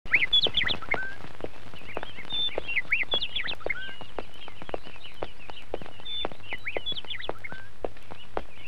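Birds chirping, with short repeated calls, over steady footsteps at about two steps a second.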